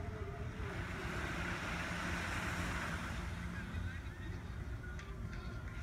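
Small waves washing onto a sandy beach, with one wash swelling in the middle, and wind rumbling on the microphone.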